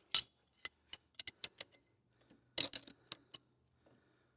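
Spanner wrench working the threaded steel end cap of a hydraulic cylinder: light metal clicks and clinks, a sharp one near the start, a scatter of small ticks, and a short cluster of clinks about two and a half seconds in.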